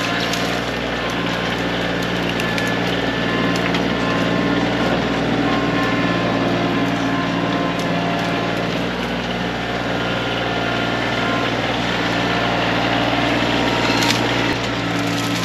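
Kioti CK2510 compact tractor's three-cylinder diesel engine running steadily at working throttle.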